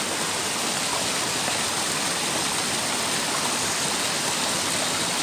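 Rocky mountain stream rushing over boulders: a steady, even rush of water.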